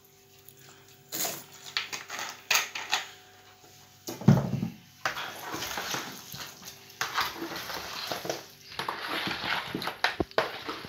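Hands mixing raw chicken pieces with vinegar in a plastic bowl: wet squishing and rustling with pieces knocking against the bowl, thick and continuous from about five seconds in. A single louder low thump comes just before the mixing picks up.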